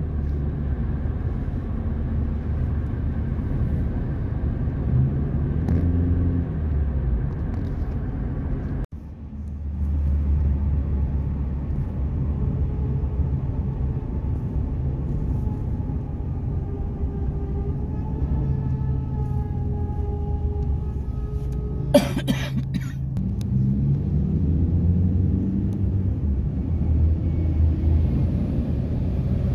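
Low, steady road and engine rumble inside a moving car's cabin, dropping out for a moment about a third of the way in. A single short sharp knock sounds about two-thirds of the way through.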